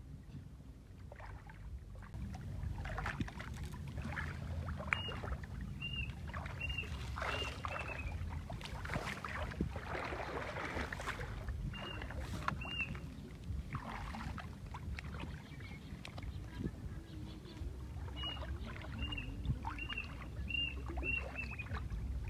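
Water sloshing and splashing over a steady low rumble, with short high chirps that come in quick groups of four or five, three times.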